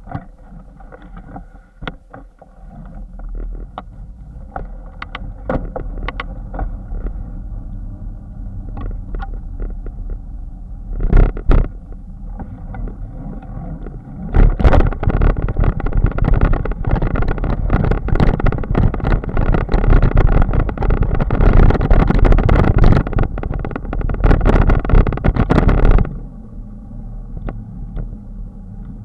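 Wind rushing over the microphone of a bike-mounted camera while riding, with clicks and rattles from the mount over bumps. The wind noise grows loud from about halfway through, then drops off suddenly near the end.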